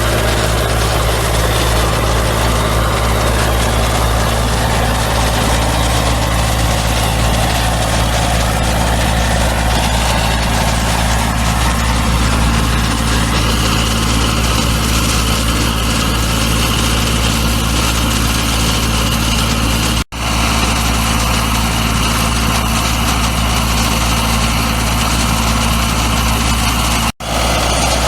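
An engine running steadily at a constant speed, with a constant hiss over it; the sound drops out for an instant twice in the second half.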